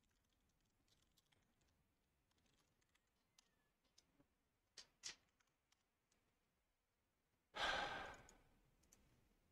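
A few faint computer-keyboard keystrokes, then near the end a man's long, heavy sigh that fades out over about a second and a half.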